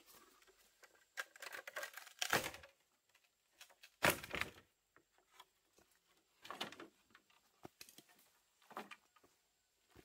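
A machete splitting a green bamboo pole lengthwise: a few sharp cracks and knocks, the loudest about four seconds in, with dry bamboo leaves crackling underfoot between them.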